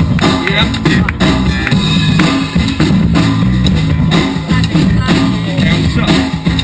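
Loud music with a steady drum-kit beat, bass and guitar.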